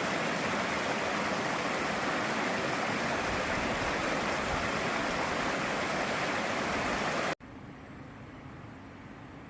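Loud, steady rush of fast-flowing white water. It cuts off suddenly about seven seconds in, leaving a much quieter steady hiss.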